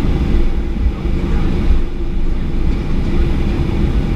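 Boeing 737-800 taxiing, heard from inside the cabin: its CFM56 engines at taxi power and the rolling airframe make a steady low rumble.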